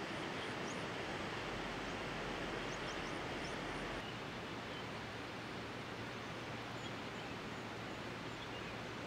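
Steady rushing of a river flowing past the campsite, with faint, short, high bird chirps over it, slightly quieter after about four seconds.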